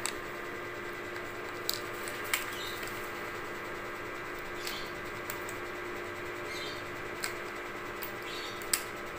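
Small scattered clicks and taps as a Takara VIT 234 tripod's quick-release plate is fitted and screwed by hand onto the base of a DSLR camera, over a steady faint hum.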